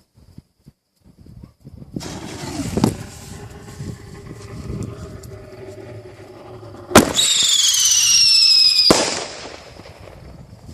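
Artillery-shell fireworks fired from a mortar tube: a sudden bang about three seconds in. About seven seconds in comes a sharp crack, then a loud whistle that falls slowly in pitch for about two seconds and ends in another bang.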